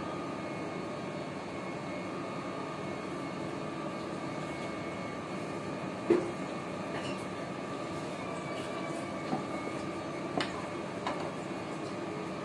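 Steady rushing hiss of a lit gas stove burner heating mustard oil in a non-stick kadhai. A sharp knock comes about six seconds in, and a few lighter clicks follow near the end.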